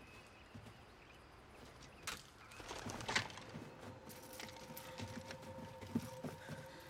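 Film sound effects of soldiers advancing through a forest: scattered footsteps and small knocks on the forest floor, with a louder rustle and crackle of brush around two to three seconds in. A steady hum comes in about four seconds in.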